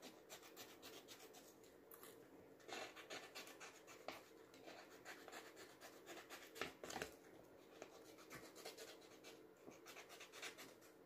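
Faint, irregular snips of scissors cutting through a sheet of stickers, with light rustling and scraping of the sheet as it is handled.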